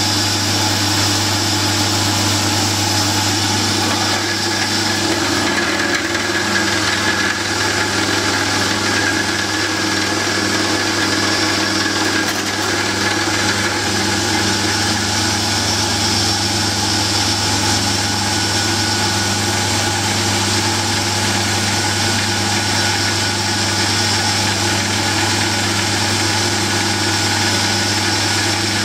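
Belt-driven milling machine running steadily at about 2000 RPM, a constant motor-and-spindle hum, while a homemade pointed carbide flow drill spins against a hardened steel file, trying to heat it by friction and melt through.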